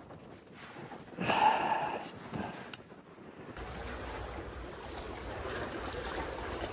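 Sea water washing among breakwater tetrapods, with one louder surge and splash a little over a second in. From about three and a half seconds in, a steady low rumble of wind on the microphone sets in.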